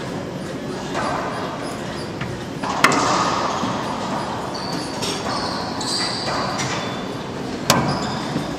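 Racquetball rally on an enclosed court: two sharp cracks of racquet hitting ball, about three seconds in and again near the end, echoing off the walls. Short sneaker squeaks on the hardwood floor come in between.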